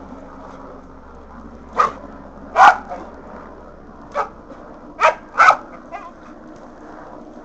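Kelpie-mix dog giving five short, sharp barks as it snaps at the spray from a garden hose, the loudest about a third of the way in and just past the middle. Under the barks runs the steady hiss of the hose spray.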